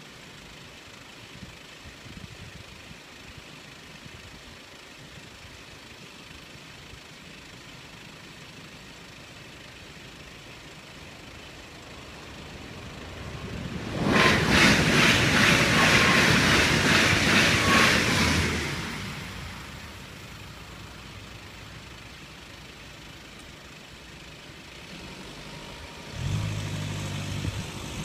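A Stadler FLIRT electric multiple-unit train passes at speed through the level crossing about halfway through: a loud rush lasting about five seconds with a quick run of wheel clicks, which then fades away. Near the end a car engine starts to pull away across the crossing.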